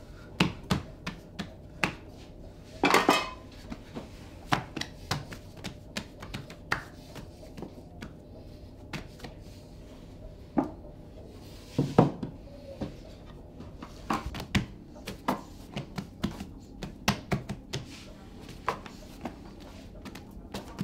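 Hands slapping, pressing and folding a large mass of bread dough in a floured wooden kneading trough, giving irregular soft slaps and sharper knocks against the trough. There is a busier flurry about three seconds in and a loud knock about twelve seconds in.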